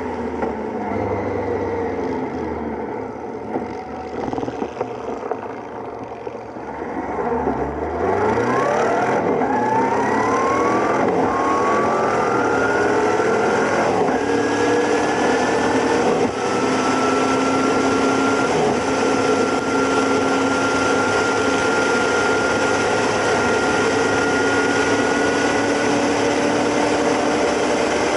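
Motorcycle engine pulling away from low speed about a quarter of the way in, its pitch rising and dropping back through several upshifts, then cruising steadily at speed with wind rushing over the microphone.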